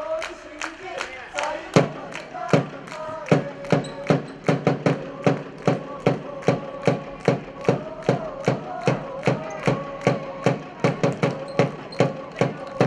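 Organised spectator cheering in a sports hall: sharp, even beats, about three a second, start about two seconds in, under voices chanting a held call in unison.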